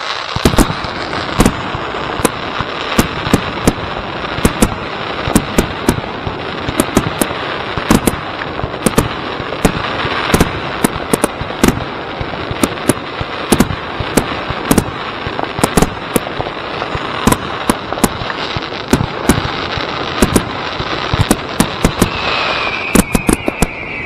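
Class B display fireworks finale: a rapid barrage of sharp shell reports, several a second, over continuous crackling. A high whistle comes in near the end, falling slightly in pitch.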